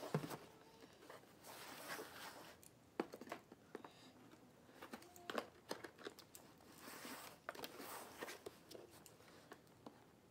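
Faint, irregular rubbing, scraping and light tapping of hands handling a cardboard product box, turning it over and sliding fingers along its sides, with some light crinkling.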